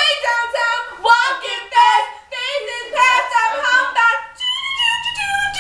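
A girl singing in a high voice, in short, continuous phrases.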